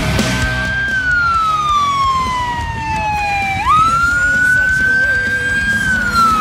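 Fire department vehicle's siren wailing. One high tone glides slowly down, sweeps quickly back up about three and a half seconds in, holds, and begins to fall again near the end.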